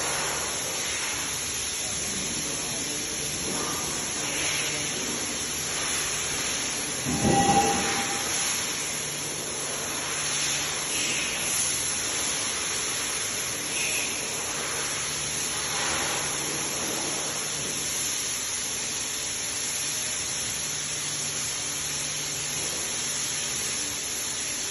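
Pile driver running: a steady hissing machine noise with a faint low hum that comes and goes. About seven seconds in there is a brief louder burst with a short whine.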